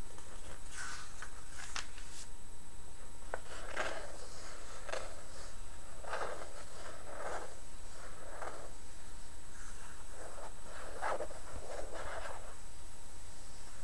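Fingers scratching and rubbing across glossy magazine pages in a series of brushing strokes, about one a second, with a page turned near the start.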